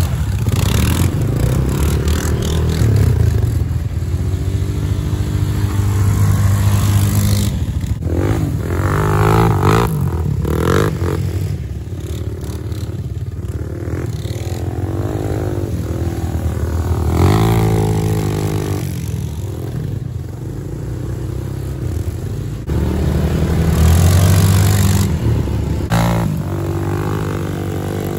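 Honda 400EX ATV's single-cylinder four-stroke engine revving up and down again and again under load, its pitch rising and falling, with a few sharp knocks between revs.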